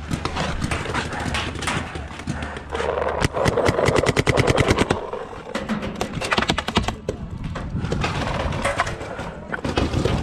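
Paintball markers firing in rapid strings, a fast run of sharp pops at about ten or more shots a second, broken by short pauses.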